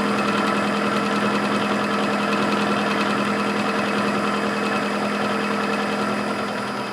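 Clausing 8520 vertical mill taking a milling pass on a T-nut flat: the cutter chatters steadily through the metal over the spindle's steady hum, easing off slightly near the end as the pass finishes.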